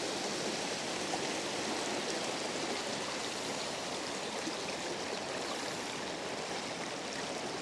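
Rain-swollen creek in flood: a steady, even rush of fast-flowing water.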